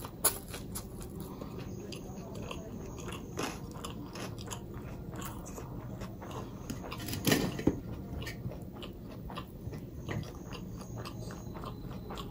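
Close-miked eating: a person chewing, with many small crunchy clicks. There is a sharp crunch just after the start and a louder pair of bites about seven seconds in.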